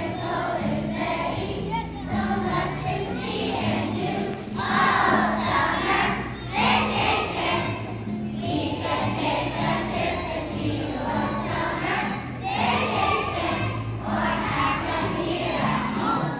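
A group of young children singing together as a choir over instrumental accompaniment, the voices swelling louder in several phrases.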